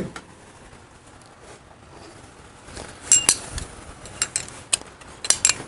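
Light metallic clinks from a Harley-Davidson Panhead clutch hub being handled and its drilled-out lining lifted off. There is a pair of clinks about three seconds in, a few more around four and a half seconds, and two near the end.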